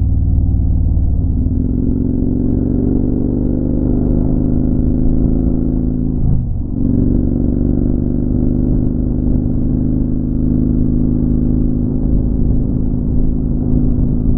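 Motorcycle engine running under way, its pitch slowly rising as it pulls, with a short break about six and a half seconds in as it changes gear, then pulling steadily again.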